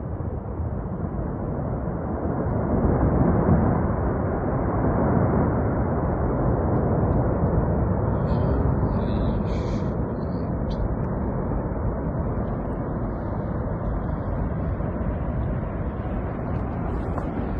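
Glacier collapse avalanche: a continuous low rushing rumble of falling ice and snow. It swells about three seconds in, then holds steady.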